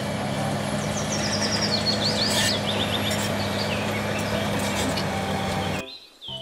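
Crawler bulldozer's diesel engine running steadily under load, with a run of high, falling squeaks about a second in. The sound cuts off abruptly near the end.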